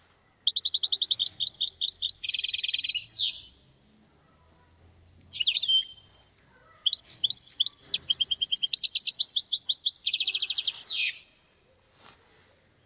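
A finch singing: a long phrase of fast, evenly repeated high notes, then a short burst, then a second long phrase. Each long phrase ends in a quick downward sweep.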